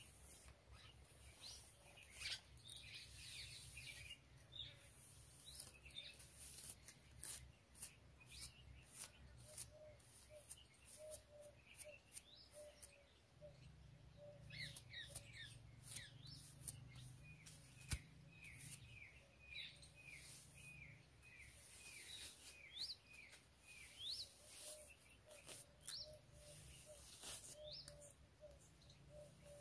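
Faint scratchy strokes of a plastic comb drawn through long hair, while small birds chirp around, with a run of quick repeated chirps in the middle.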